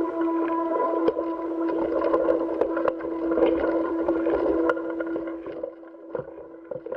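Soundtrack of NASA space footage: a steady mechanical hum with one constant tone, over a rough hiss full of scattered clicks and crackles. The hiss and crackles drop away about five and a half seconds in, leaving the hum.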